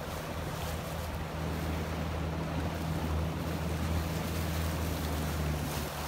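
Outboard motor of a rigid inflatable boat running at a steady speed, a constant low hum, under wind noise and the rush of water.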